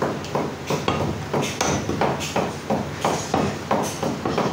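Butcher's cleaver chopping mutton into pieces on a wooden log chopping block: a steady run of sharp chops, about three a second.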